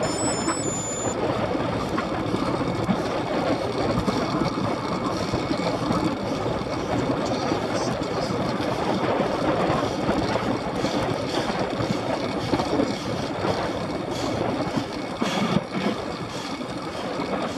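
Steady rush of wind buffeting a Garmin VIRB action camera's microphone on a bicycle moving at about 24 mph.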